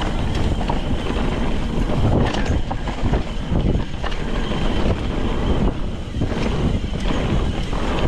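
Wind buffeting the microphone of a mountain bike riding fast down a dirt trail, with irregular knocks and rattles from the bike going over the ground.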